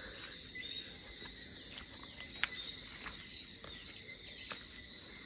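High, steady trilling of insects in several overlapping layers, with a few faint footsteps on a brick path.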